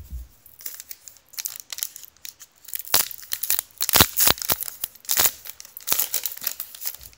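Trading-card pack wrapper crinkling and tearing: a run of sharp crackles, loudest about four seconds in.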